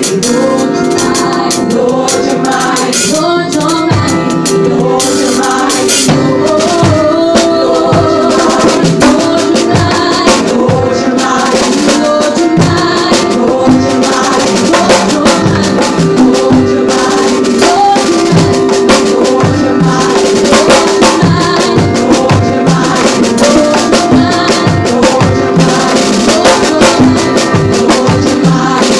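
Live church band music with hand-played congas up close, their strokes in a steady rhythm over sustained keyboard chords.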